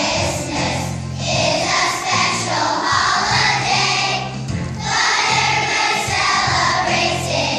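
A children's choir singing a song together, with instrumental accompaniment holding steady low notes beneath the voices.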